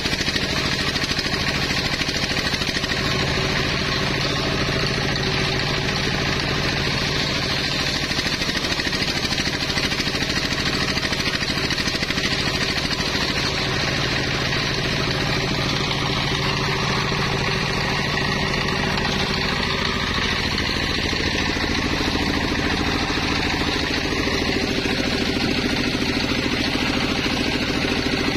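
Engine of a home-built mobile sawmill running steadily under load, driving a large circular saw blade that rips waru (sea hibiscus) wood into planks.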